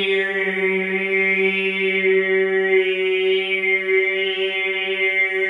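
A man's voice holding one steady low note as a drone while the overtones above it shift, in the manner of overtone or mantra chanting.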